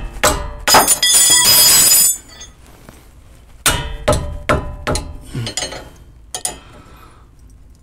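Metal hand tools knocking and clinking on a car's front sway bar end link and its nut. About a second in there is a loud ringing metallic clatter lasting about a second, followed by a string of separate sharp taps and clicks.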